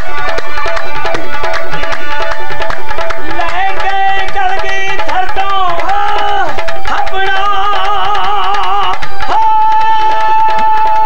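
Live Punjabi folk singing: a man's high-pitched voice sings ornamented, wavering phrases, then holds one long steady high note from about nine seconds in. Under it a tumbi plucks one note over and over, with a hand drum keeping the beat.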